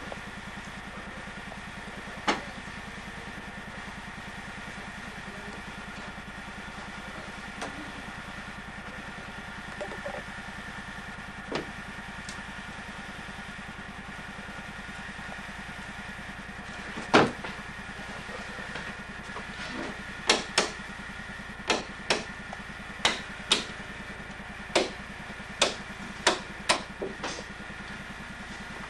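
A steady machine hum made of several fixed tones, like a running motor or engine. A few sharp knocks break in, the loudest about halfway through, then about ten more in an uneven string near the end.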